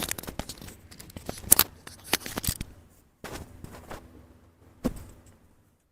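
Chiropractic neck adjustment: a quick series of sharp cracks and pops from the neck joints, the loudest about a second and a half in and a few more just after two seconds, with one further crack near five seconds amid the rustle of hands and towel.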